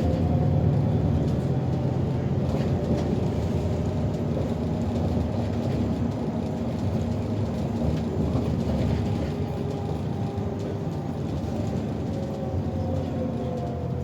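City bus driving, heard from inside the cabin: a steady low rumble of engine and road with a faint whine that glides slowly in pitch, falling near the end.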